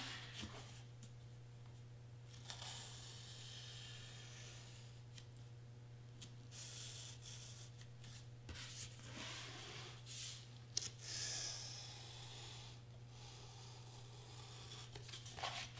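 Craft knife blade drawn through foam board in slow strokes, a faint scratchy rasp that comes and goes for a second or two at a time. A steady low hum runs underneath.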